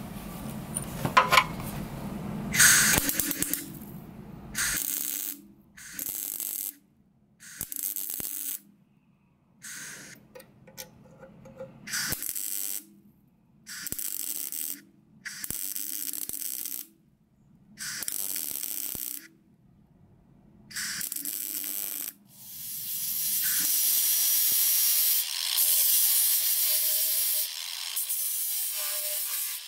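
MIG welder laying short stitch welds on a steel car crossmember: about ten separate bursts of a second or so each, with short pauses between. Then an angle grinder starts and runs steadily on the steel.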